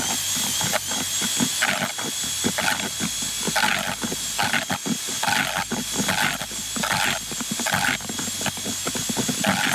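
Cordless drill with a groundbait mixing paddle running steadily in a plastic bucket, whisking dry fishmeal groundbait. A steady high motor whine runs under a rasping churn of the mix that surges about once a second.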